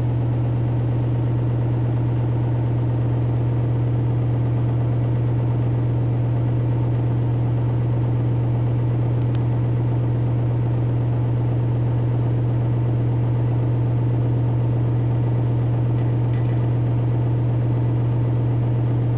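ACME Engineering & Manufacturing Corp. ceiling exhaust fan running, a steady low hum with the whir of the fan over it.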